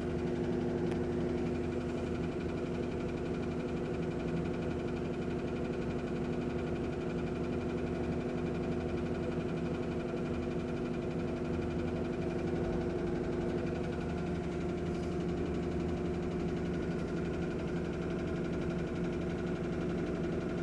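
Samsung top-load washing machine in its spin cycle: a steady mechanical hum with several held tones and vibration. This is the noise at spin time that the owner treats as a fault.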